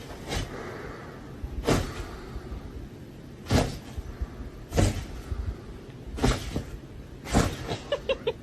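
Six dull knocks or thuds, irregularly spaced about one to two seconds apart, over a faint background hiss.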